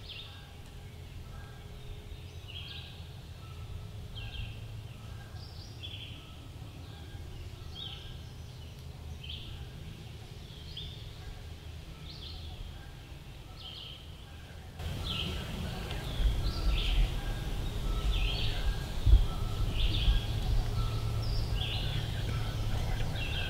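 A small songbird repeating a short chirped note about every two-thirds of a second. About fifteen seconds in, a louder low rumble comes in under it, with a single thump a few seconds later.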